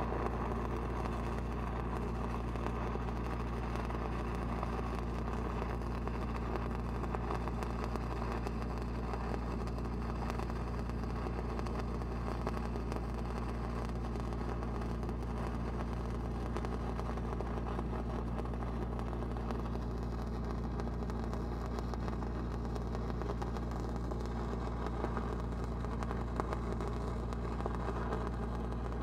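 Continuous crackle of a stick-welding arc burning a 5/32 E8010 cellulose rod downhill on steel pipe, over the steady running of a Lincoln SAE 300 engine-driven welding machine.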